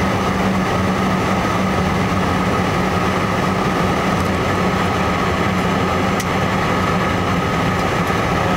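Steady cabin noise of a Learjet 55 on landing approach: its two Garrett TFE731 turbofan engines running, with rushing air, heard as a constant low hum under a steady higher whine.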